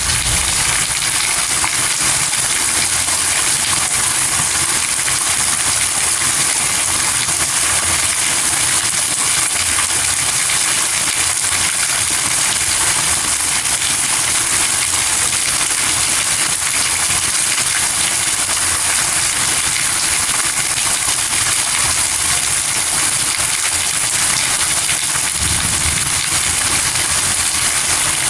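Steady rain falling, a dense even hiss that does not let up.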